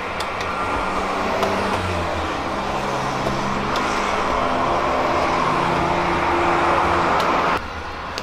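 Street traffic: a steady rumble with a low engine hum, slowly growing louder, then cut off sharply near the end.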